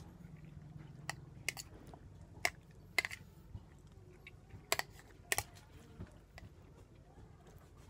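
A man eating braised pork hock with a spoon: a scatter of sharp clicking smacks, about eight of them, over a low steady hum.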